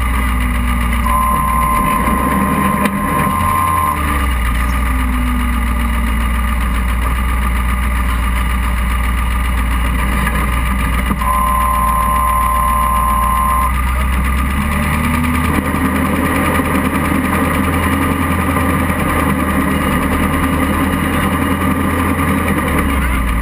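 Off-road buggy engine running with its revs slowly rising and falling. A steady high whine comes in twice, about a second in and again around eleven seconds in, each lasting two to three seconds.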